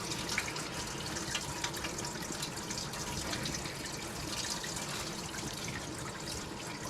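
Water tap running steadily, with small drips and splashes; the tap is being left on for a few minutes to flush the line before a well-water sample is drawn for testing.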